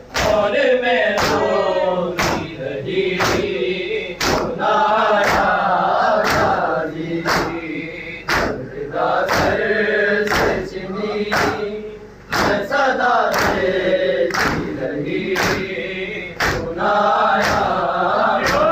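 Men chanting a noha (mourning lament) together, with the sharp claps of open hands striking chests in unison in matam, at a steady beat of about one a second.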